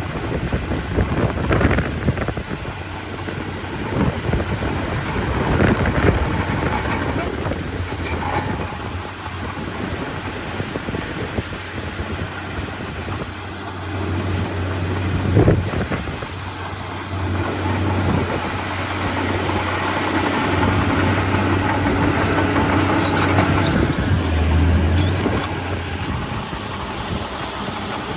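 Heavy diesel earthmoving machinery running under load, a low steady engine drone that swells in the second half, with occasional sharp clanks.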